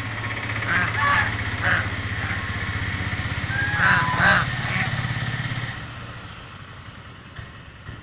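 White domestic geese honking several times in short calls, loudest about four seconds in. A steady engine drone runs underneath and stops about six seconds in.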